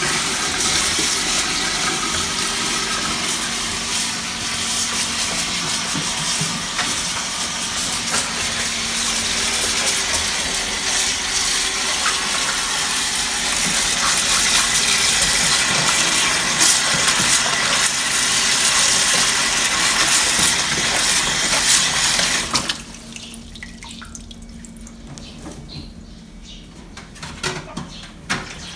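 Kitchen tap running into a plastic bowl in a stainless steel sink while greens are rinsed and rubbed by hand in the water. The tap is shut off about three-quarters of the way through, leaving small splashes and drips and a few knocks as the bowl is handled.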